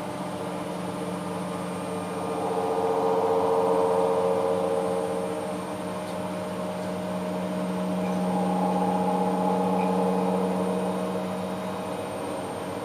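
Hoover H-Wash 500 washing machine's drum motor tumbling the load during a synthetic wash: a steady motor hum that swells twice, each spell lasting about four seconds, with a short lull between as the drum stops and turns again.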